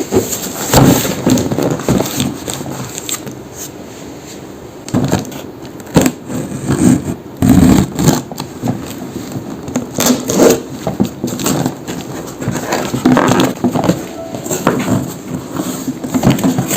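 Close-up handling sounds: crackling, scraping and a string of sharp clicks and knocks as household items are handled.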